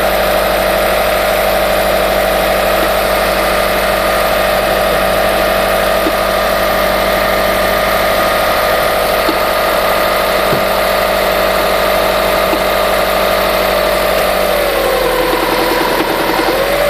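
Subaru Forester boxer engine idling, not yet warmed up, with a steady whine whose pitch drops about 14 seconds in as the idle settles, then rises briefly near the end. The owner is checking it for a knock on cold start from the timing-belt area after the belt and rollers were replaced.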